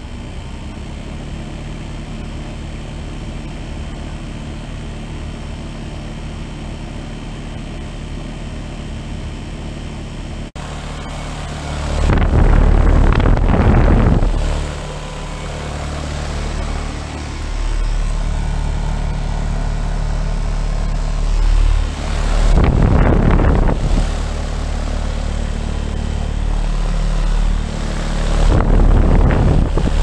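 A 2019 Bryant Legacy Line heat pump's outdoor unit running in cooling mode: a steady hum from the compressor and condenser fan. Three times, for a couple of seconds each, a loud rush of air comes through as the fan's discharge blows across the microphone.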